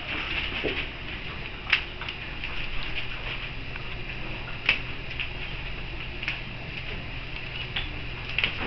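Standard poodle puppies moving about a newspaper-lined wire pen: paper rustling and pattering, with a few sharp clicks, and a faint steady hum from a little before halfway.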